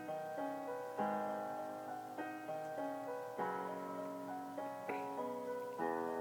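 Solo piano playing chords, about one struck each second, each ringing and fading before the next.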